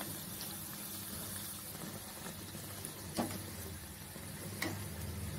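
Bhature deep-frying in hot oil in a kadhai, a steady sizzle. A metal slotted spatula knocks against the pan twice, a little after three seconds in and again about a second and a half later.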